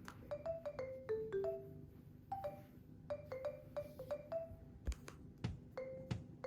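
Background music: a light melody of short, quickly fading mallet-like notes, with soft low thumps joining from about five seconds in.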